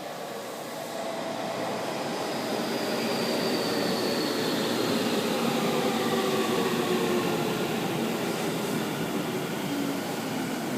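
Electric train on the Tokyu line running into the station, growing louder, its motor whine falling steadily in pitch as it slows.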